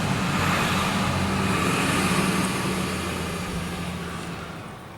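Steady engine hum and road noise of a vehicle going by, fading out over the last couple of seconds.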